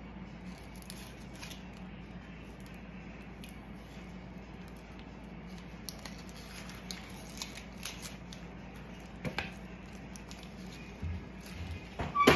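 Dry, papery onion skin crackling and tearing as it is peeled off by hand, in scattered small clicks over a steady low hum. A sharper knock comes near the end.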